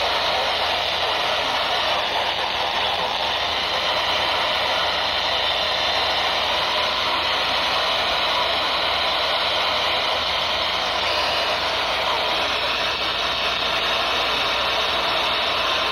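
Steady radio static: an even hiss from a radio receiver with no voice or alert tones coming through.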